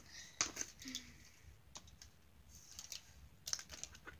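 Light clicks and taps of felt-tip markers being handled in a plastic marker tray: a couple of sharp clicks about half a second in and a quick cluster near the end.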